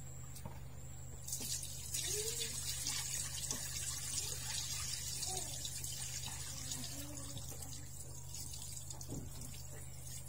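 Water poured out of a plastic basin, splashing onto concrete; the splashing starts about a second in and tapers off near the end.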